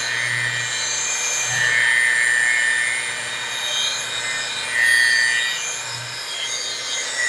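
DeWalt rotary polisher with a wool buffing pad running on a painted car hood, its motor whining steadily with the level rising and falling as the pad is worked over the paint. It is buffing out 2000-grit wet-sanding marks.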